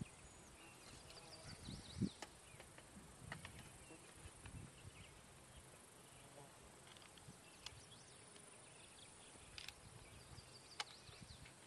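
Near silence: faint outdoor ambience with a steady high insect hum and a few bird chirps. A few faint clicks and knocks come from handling a rifle and the rifle grenade on its muzzle spigot; the loudest is a low knock about two seconds in.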